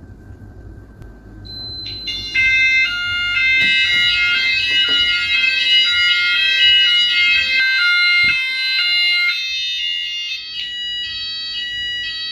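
Fire alarm sounders of a home fire alarm system, very loud, with the system in full alarm after a smoke detector test. A single tone starts about a second and a half in, then several sounders join with tones that step between pitches and overlap one another.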